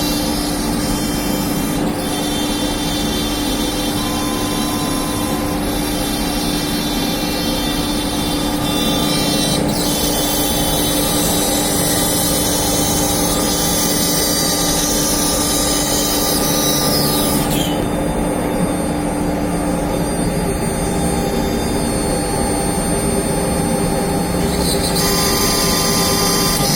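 CNC router cutting MDF: the spindle's steady high whine over the loud hiss of the bit in the board. The hiss changes character as the cut goes on, thinning out about two-thirds of the way through and returning near the end.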